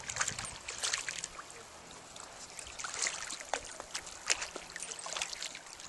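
Hooked silver (coho) salmon thrashing at the surface of shallow river water on a fishing line, making irregular small splashes.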